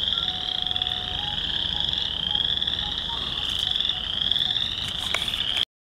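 Dense chorus of small frogs, western chorus frogs and spring peepers, calling without pause in a steady high-pitched wall of sound from a spring wetland.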